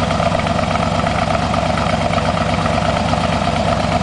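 A 1968 Corvette's 1972 LT-1 350 small-block V8 idling steadily through its side exhaust pipes, with an even pulse.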